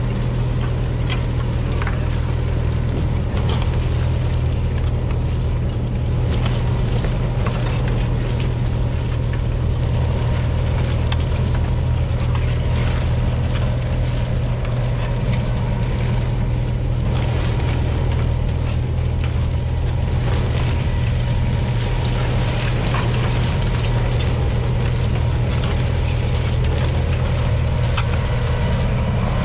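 Kubota M7-153's 6.1-litre four-cylinder diesel engine running at a steady pitch.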